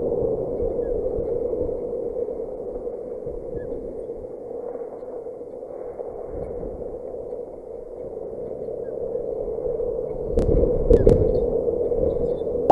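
Wind gusting over the microphone, a fluctuating rumble that swells toward the end, with a few sharp knocks about ten seconds in.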